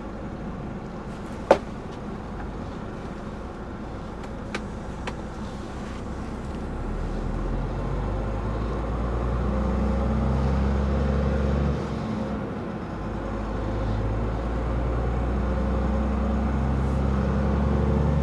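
Scania 560 S Super's 13-litre straight-six diesel pulling away under a 40-tonne load, heard from inside the cab. It grows louder as the truck gathers speed, drops briefly about twelve seconds in as the gearbox shifts up, then builds again. A sharp click comes about a second and a half in, and two faint ticks a few seconds later.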